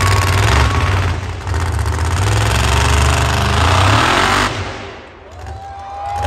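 Monster truck engine revving hard, easing off about four and a half seconds in, then revving up loudly again near the end.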